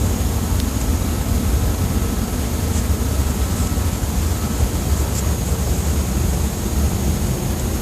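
Steady low droning rumble with no clear pitch, the constant machine-like engine noise heard in the night sky, its source unidentified. A few faint ticks sit over it.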